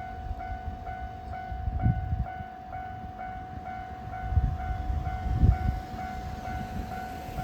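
Japanese railway level-crossing alarm ringing: an electronic bell repeating about two and a half times a second over a steady tone. A low, irregular rumble runs underneath and swells about two, four and a half and five and a half seconds in.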